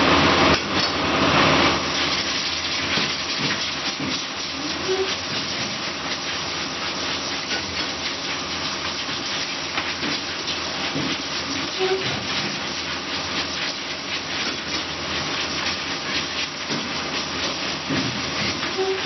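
Automatic casting machine running its cycle: a steady mechanical clatter with hissing. A short tone comes back about every seven seconds, marking each cycle.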